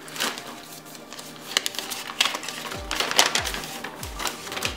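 Crinkling and rustling in short irregular bursts as a padded plastic mailer is opened by hand and a paper sheet is pulled out and unfolded. Background music with a low thumping beat runs underneath, the beat coming in about halfway through.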